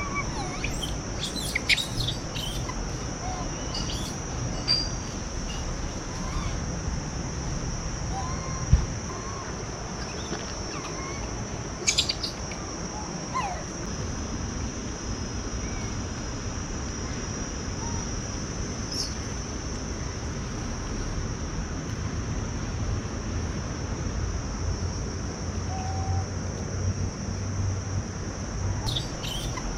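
Outdoor forest ambience: a steady high-pitched drone of insects, with short bird chirps and calls scattered throughout and a few sharp clicks.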